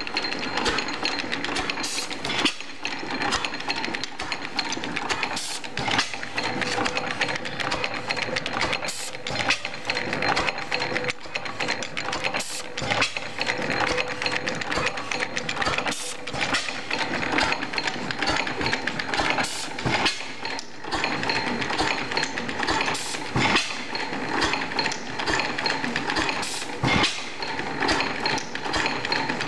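5 HP Springfield hit-and-miss gas engine running: a steady clatter of valve gear, sideshafts and igniter, with a sharp bang every two to four seconds where it fires. The uneven spacing of the bangs is the hit-and-miss governor letting the engine coast between power strokes.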